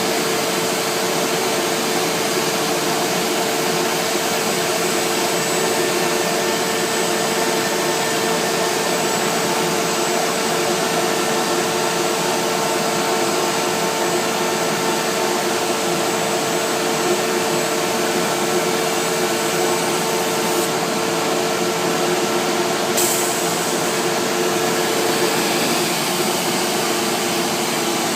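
CNC router cutting MDF panels, running steadily: a constant whine over an even rushing noise, with a brief click about 23 seconds in.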